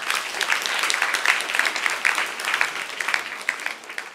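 Audience applauding at the close of a live poetry reading: a dense patter of many hands clapping that tapers off near the end.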